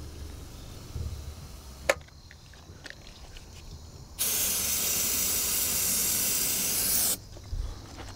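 An aerosol spray can hissing in one steady burst of about three seconds, starting about four seconds in, sprayed into an aircraft engine that won't start for lack of fuel, to help it fire. A sharp click comes a couple of seconds before.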